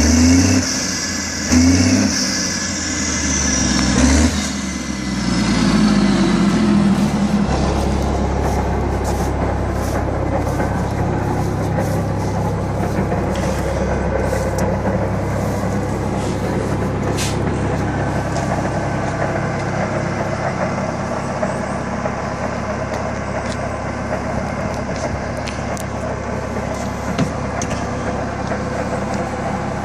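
FV180 Combat Engineer Tractor's diesel engine revved several times, its pitch rising and falling, then settling to a steady run from about seven seconds in.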